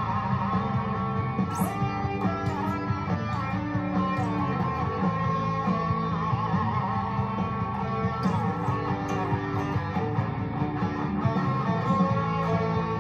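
Electric guitar playing: a Fender Player Series Stratocaster with three single-coil pickups, plugged in, playing a continuous run of picked notes and chords, with several notes bent up and down in pitch.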